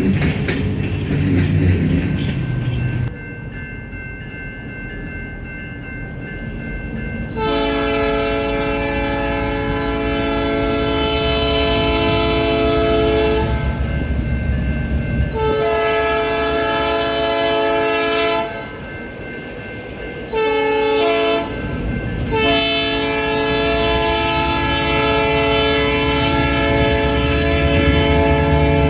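CP GP38-2 diesel locomotive horn sounding the grade-crossing signal: two long blasts, a short one, then a long one that is still going, over the rumble of the locomotive moving off. Before it there are a few seconds of low train rumble.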